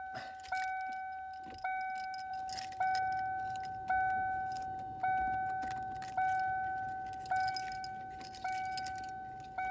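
1997 Ford Mustang's door warning chime dinging over and over, one clear tone struck about once a second, each ding fading before the next, with light clicking and rattling of keys. The owner traces the unwanted chiming to a wire touching metal.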